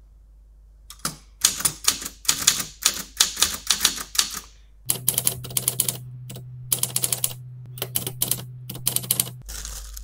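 Typewriter keys clacking in quick runs as text is typed onto paper, starting about a second in. A low steady hum sits under the second half.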